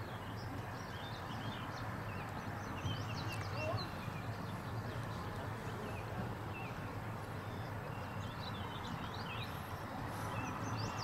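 Birds chirping in short scattered calls, in clusters about a third of the way in and again near the end, over a steady low rumble of open-air background noise.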